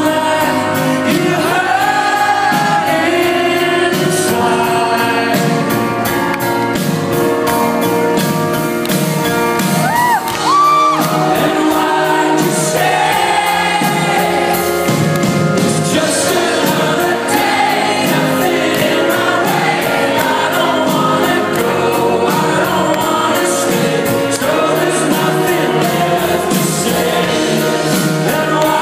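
Live pop-rock band playing: male lead vocal over piano and drums with a steady beat, recorded from among the audience in a concert hall.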